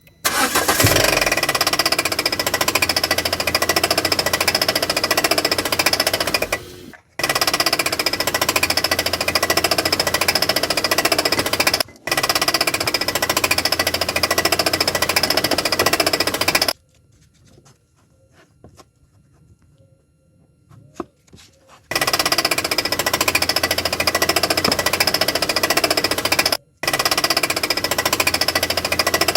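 Citroën Xsara's 1.6 16v TU5JP4 petrol engine idling with a loud, fast knocking clatter that sounds like rod bearing knock; the cause is a virtually destroyed crankshaft vibration damper pulley. The clatter cuts off abruptly a few times, and for about five seconds near the middle only faint clicks are heard.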